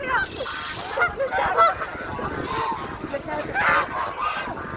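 A flock of birds calling, many short calls overlapping one another without pause.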